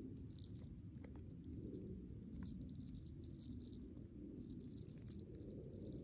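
Faint outdoor ambience on the forest floor: a low, steady rumble with light, irregular high-pitched ticking coming and going in clusters.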